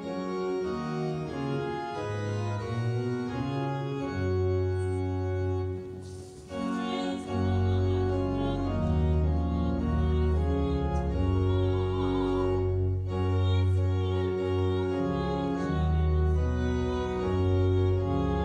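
Organ playing slow, held chords. There is a brief dip about six seconds in, after which deep bass notes join.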